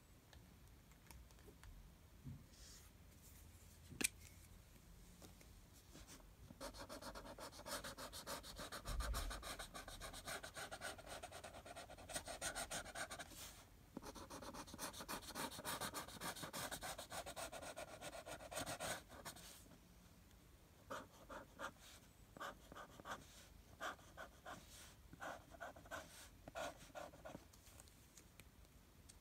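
Felt-tip marker scribbling on paper in quick back-and-forth colouring strokes. It starts about six seconds in and runs for about thirteen seconds with a short break, then goes on as shorter separate strokes; there is one sharp click about four seconds in.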